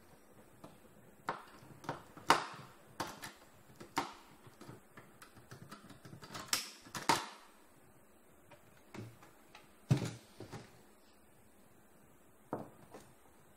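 Plastic and metal parts of a copier fuser unit clicking and knocking as it is taken apart by hand, in irregular sharp clicks that are loudest about two seconds in and around seven seconds.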